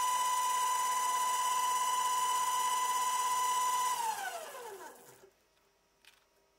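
Motor-driven spindle of a DIY micro lathe built from a CNC rotary axis, running with a steady high whine. About four seconds in the motor is switched off and the whine falls in pitch as the chuck spins down to a stop.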